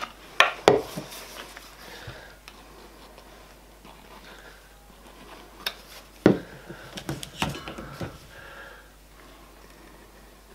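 Plywood pieces being handled and set against a workbench. A few sharp knocks come just after the start and a cluster around six to seven and a half seconds in, with quiet handling between.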